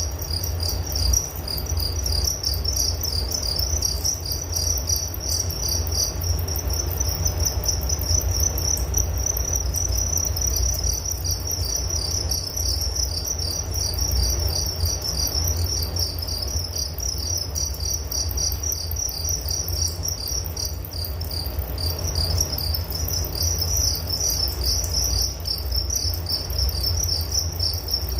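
Several crickets chirping in a dense, continuous chorus of rapid high trills, two pitches overlapping at times. A steady low rumble runs underneath.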